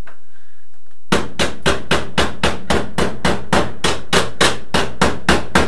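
Hand hammer striking sheet steel on a car's sill panel, a steady run of sharp blows about three a second, starting about a second in.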